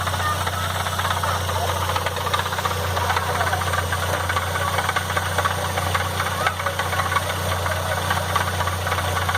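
Chevrolet Vectra CD 2.0 16-valve four-cylinder engine running steadily with a fast, continuous ticking clatter over its hum: the strange noise the owner is trying to track down.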